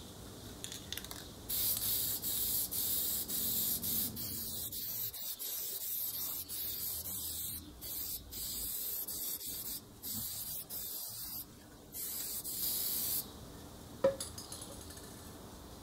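Aerosol can of spray-on air filter oil hissing as it coats a foam motorcycle air filter. The spraying comes in several long bursts with brief pauses and stops about thirteen seconds in, followed shortly by a single sharp click.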